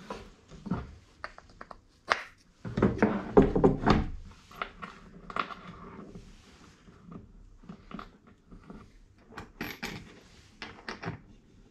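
MDF stop blocks and bolt-and-wing-nut hardware being handled and fitted on a wooden workbench: scattered knocks and clicks, with a busier run of knocks about three seconds in.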